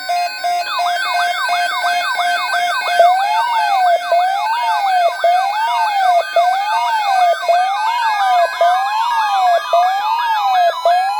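Electronic siren alert sound broadcast over FM radio, several siren patterns layered: a pulsing steady tone at first, then a wail rising and falling about once a second under a fast yelp sweeping several times a second, with another tone slowly rising near the end.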